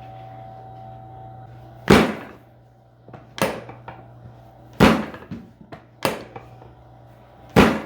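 Five sharp thuds about a second and a half apart during a chiropractic adjustment, the first, third and last the loudest. A low steady hum stops about a second and a half in.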